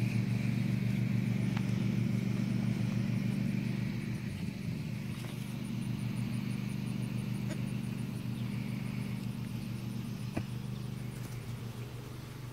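A steady low mechanical hum, like a motor or engine running, a little quieter after about four seconds, with a few faint clicks.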